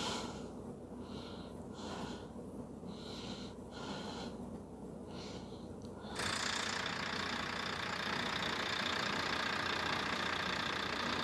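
Volvo 440 truck's six-cylinder diesel engine starting about six seconds in and then running steadily at idle: the first start after a new water pump and fan clutch were fitted, to check for coolant leaks. Before it starts there are only faint, quiet sounds.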